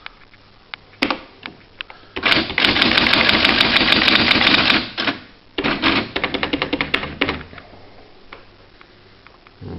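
Quen-Data Executive 80 electronic typewriter printing at its boldest setting. A few single clicks come first, then a dense, rapid chatter of print strikes for about two and a half seconds. After a short pause comes a quicker run of separate strikes that stops a little past the middle.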